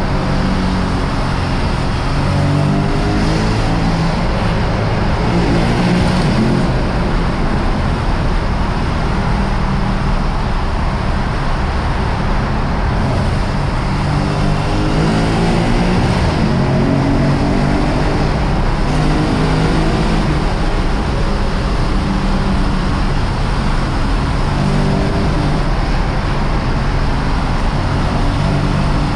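Lexus RC F's 5.0-litre V8 running while the car is driven, its pitch rising and falling in places as it speeds up and eases off, over steady tyre and road noise.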